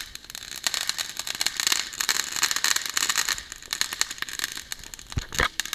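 Ground fireworks going off: a fountain hissing under a dense crackle of many small pops, loudest in the middle, with two louder bangs in quick succession near the end.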